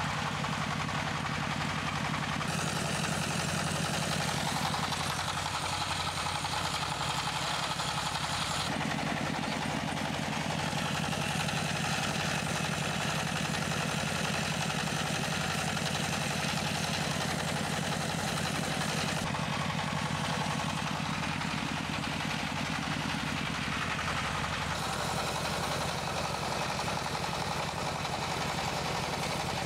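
Single-cylinder diesel tractor engine running steadily, driving a corn-puff extruder, with a fast even pulse.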